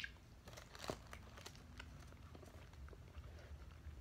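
Faint eating sounds: small clicks and wet mouth smacks from eating jelly off a plastic spoon, along with light handling of the plastic jelly cup. There is a sharp click at the very start and a few more clicks about a second in.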